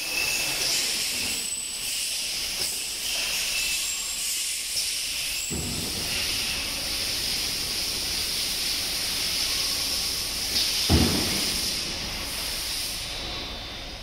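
Automatic linear bottle washer rinsing inverted plastic edible-oil bottles, its jets giving a steady high hiss. Two dull thumps come from the machine, about five and a half seconds in and again about eleven seconds in.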